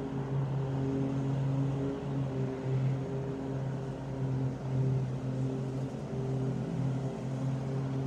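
Lawnmower engine running steadily, its low hum swelling and fading a little every second or two.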